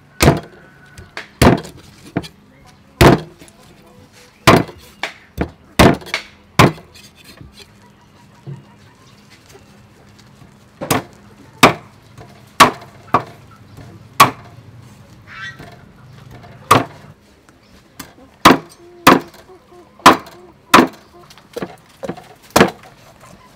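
Meat cleaver chopping raw chicken pieces on a thick round wooden chopping block: sharp, loud knocks, single strokes roughly a second apart in irregular runs, with a pause of a few seconds about a third of the way in.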